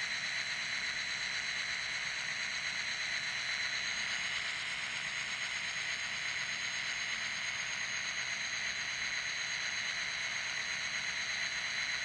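ESU sound decoder in a Kato N scale F40PH model locomotive playing a diesel locomotive engine sound through its tiny speaker as the model runs, a steady hissy rumble with a few high tones that shift slightly upward about four seconds in.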